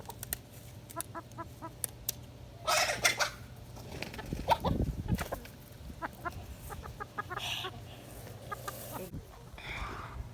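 Hens clucking in short runs of quick notes, with a loud rustling burst about three seconds in.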